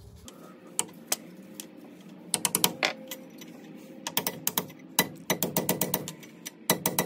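Light, quick metal taps of a hammer on a carrier bearing shim in a Dana 44 rear differential housing, coming in short runs of several taps at a time as the shim is driven back into place beside the carrier.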